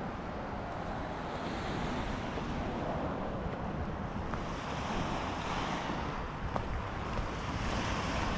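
Lake waves washing onto the shore, swelling and falling every couple of seconds, with a low rumble of wind on the microphone.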